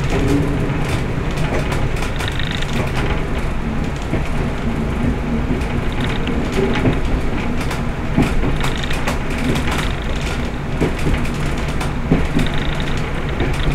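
1960s Class 122 'Bubble Car' diesel railcar running along the line: a steady underfloor diesel engine drone with many clicks and rattles from the running gear and bodywork.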